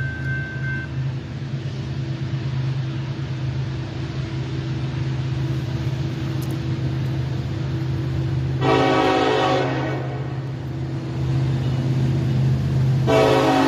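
Diesel locomotive engine running with a steady low drone, and its air horn sounding two blasts: a long one about two-thirds of the way in and another starting near the end.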